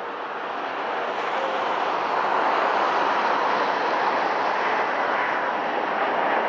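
Boeing 787-9 airliner's jet engines: a steady, wide roar that swells over the first two seconds and then holds.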